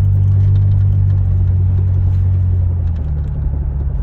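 Truck running down the road with a steady low drone and rumble, easing off slightly about three seconds in. The occupants suspect a failing hub bearing is behind the noise.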